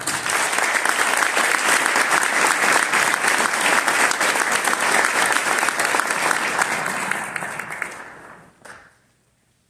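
Audience applauding, the clapping dying away about eight to nine seconds in.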